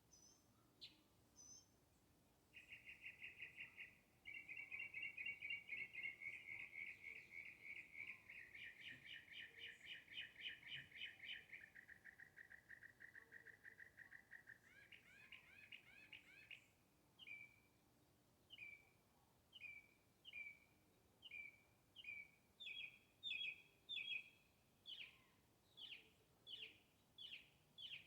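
A songbird singing faintly: a few short chirps, then a long, rapid trill that shifts pitch over about a dozen seconds, then a steady series of separate chirps, a little more than one a second.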